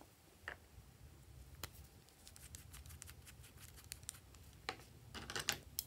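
A run of small sharp clicks and snips as a plastic lip balm stick is handled and cut with scissors, with a louder cluster of snips near the end.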